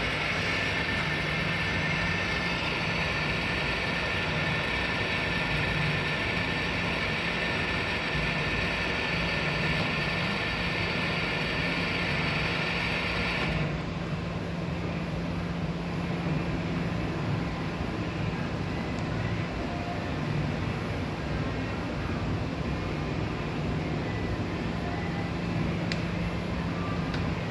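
Miyano BND-42S5 CNC lathe running with a steady low hum and a higher hissing whine on top. The higher part cuts off suddenly about halfway through, leaving the lower machine hum running on.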